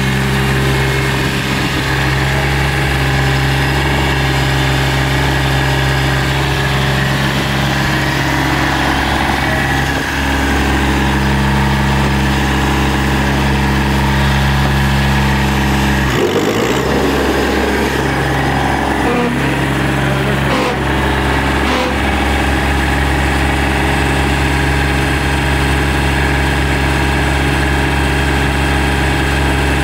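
Kubota BX2200 compact tractor's three-cylinder diesel engine idling steadily; the even note breaks up briefly about sixteen seconds in.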